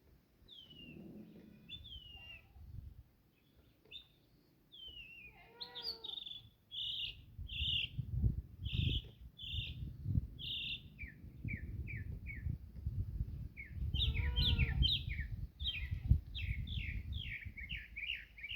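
Mockingbirds singing a varied string of many different sounds: whistled slurs and repeated notes, then a run of short falling chirps and a fast stuttering series near the end. A low rumble of background noise sits under the song from about six seconds in.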